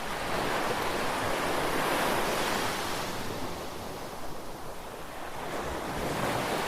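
Ocean waves washing on a shore, one wave swelling and ebbing away, then the next beginning to build near the end.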